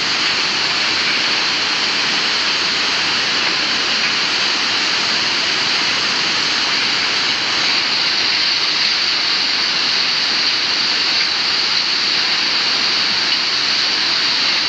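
Loud, steady rush of a river in flood.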